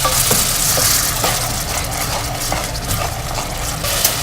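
Butter, garlic and spices sizzling in a pan just after a quarter cup of water has gone in, with a utensil stirring and ticking against the pan. The hiss is strongest in the first second, then eases.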